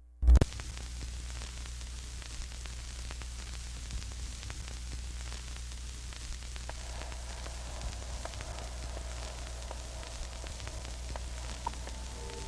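Steady crackling static hiss over a low hum, with a loud thump right at the start. Faint held musical notes come in near the end.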